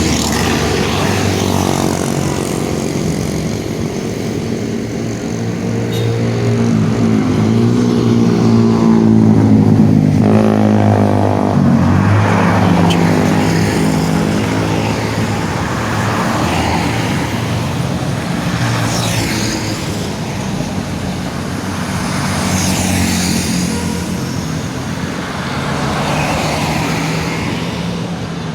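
Heavy vehicles on a busy road, with steady deep pitched drones that bend in pitch as they pass, and a louder stretch about ten seconds in.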